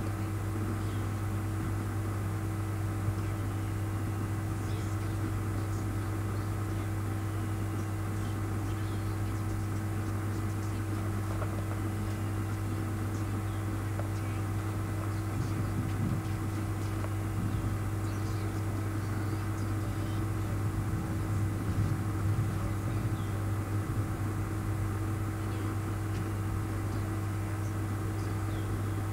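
Steady low electrical hum with faint room noise, unchanging throughout.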